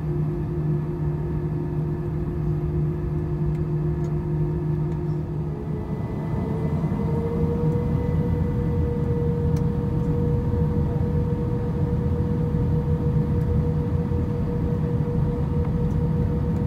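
Airbus A320 jet engines and airflow heard from the passenger cabin over the wing while taxiing: a steady hum, and about six seconds in a tone rises a little and holds as engine thrust comes up, the sound growing slightly louder.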